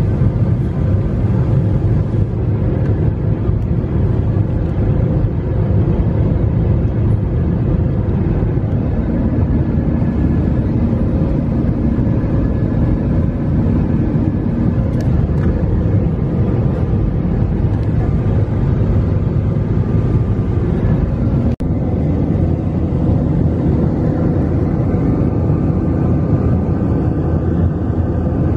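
Steady drone of jet engines and rushing air heard inside an airliner cabin in flight, with faint steady hums riding on it. It drops out for an instant once, about three-quarters of the way through.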